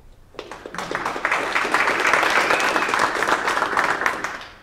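Small audience applauding. The clapping builds up about half a second in, holds steady, and dies away near the end.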